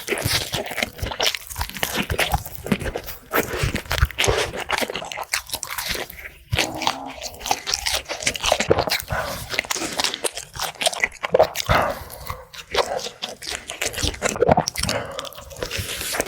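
Close-up crunching of crispy food being bitten and chewed, a dense run of irregular crackles.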